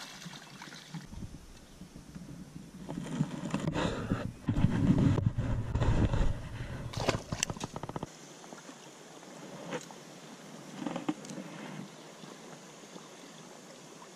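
Water splashing and the landing net and fish knocking against an inflatable raft as a hooked smallmouth bass is netted and handled, loudest between about three and eight seconds. Afterwards it is quieter, with a few light clicks.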